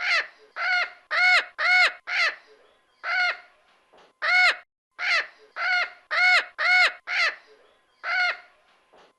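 Mexican parrot giving harsh squawks, about a dozen in a row, each call rising and then falling in pitch, mostly a half second or so apart with a few slightly longer pauses.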